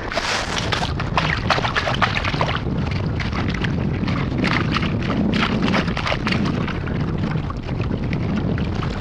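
Perforated stainless-steel sand scoop digging into waterlogged sand: repeated scraping and gritty crunches of sand and shell, with water sloshing. A low wind rumble on the microphone runs underneath.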